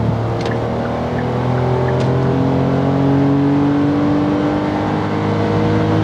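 Hyundai Casper's naturally aspirated 1.0-litre three-cylinder engine and road noise heard from inside the cabin while cruising at about 64 km/h: a steady drone with little change in pitch.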